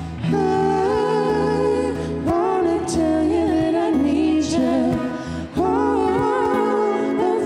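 Live band music: a man and a woman singing held notes in harmony over strummed acoustic guitar and electric guitar.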